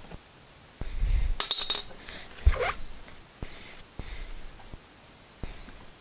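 Metal clinks and knocks of hand tools against the brake caliper, with one bright ringing clink about a second and a half in and a sharp knock a second later, followed by soft scuffs of a shop towel rubbing the caliper.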